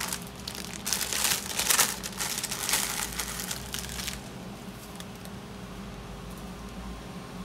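Thin plastic bag crinkling and dry herb leaves rustling as a handful of dried herbs is taken out of the bag. The crackling runs for about three seconds and then dies away.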